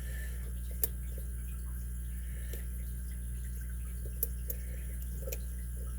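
Sparse small metallic clicks of a lock pick and tension wrench working the pins of a Yale pin-tumbler lock cylinder: a sharp click about a second in, then a few lighter ticks around four to five seconds in.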